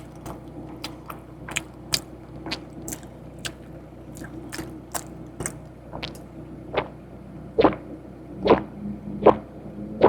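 Close-up chewing of crispy fried food: a run of short, sharp crunches about two a second, turning louder and deeper at about one a second in the last few seconds, over a steady low hum.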